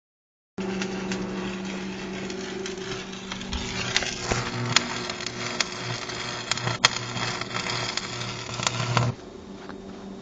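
Arc welding: a steady buzzing arc with crackle and sharp pops that stops suddenly about nine seconds in, when the arc is broken, leaving a quieter hum.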